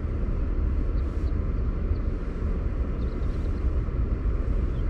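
A car driving at steady speed, heard from inside the cabin: an even, low rumble of engine and tyre noise on the pavement.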